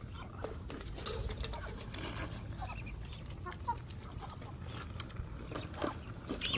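Birds calling in the background in short scattered notes, with a few light clicks of spoons against bowls and the wok.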